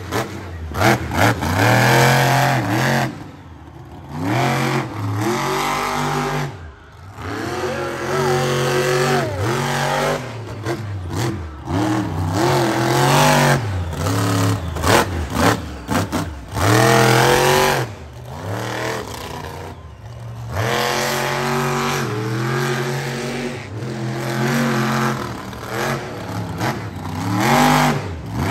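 Monster truck engine revving hard over and over, its pitch climbing and dropping with each burst of throttle, with a few brief lulls between runs.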